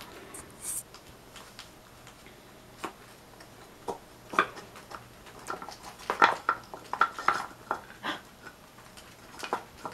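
Pet rats working at a wooden treat-block puzzle toy: irregular light clicks, knocks and scrapes of the wooden blocks and claws, sparse at first and busier from about the middle on.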